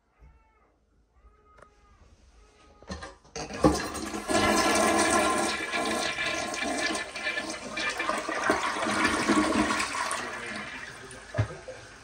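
1991 Kilgore Alpha toilet flushing. A click comes about three seconds in, then a loud rushing swirl as the bowl empties, fading toward the end, with a sharp knock shortly before the end.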